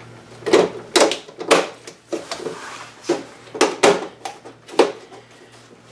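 Plastic front bezel of a Samsung LED TV being pressed around the panel edges and snapping into its clips: a series of about half a dozen sharp plastic clicks and knocks.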